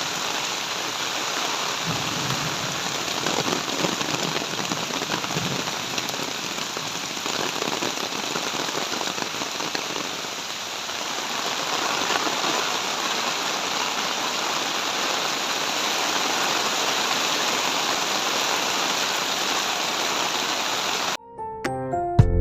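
Heavy rain falling, a steady dense hiss. About a second before the end it cuts off abruptly and music begins.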